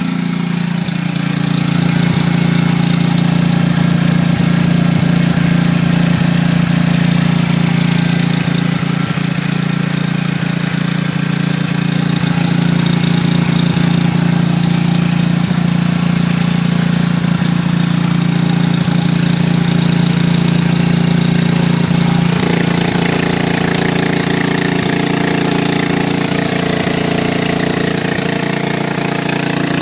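Generator engine running steadily at constant speed, with a slight change in tone about two-thirds of the way through.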